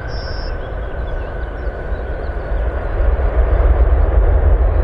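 Twin-engine jet airliner rolling out after touchdown: a steady, deep engine rumble that grows louder about three seconds in.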